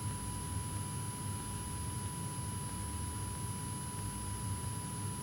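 Cessna 172 engine and propeller droning steadily in the cockpit during a cruise descent, heard as an even low rumble with hiss, with a thin steady tone above it.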